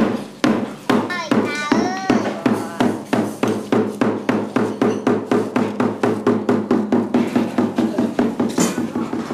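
Hanging bossed gong struck over and over, slow at first and speeding up to a fast steady roll of about four or five strokes a second, with its low ring sounding under the strokes. The strokes stop near the end.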